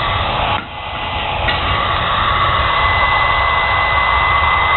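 Old hair dryer running with a steady rush of air. The sound drops sharply about half a second in, then builds back up, and a steady high whine settles in about a second and a half in.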